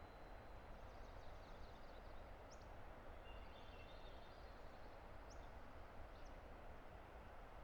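Faint, steady rushing of a distant river, with small birds calling over it: a few short rising chirps and a couple of brief trills.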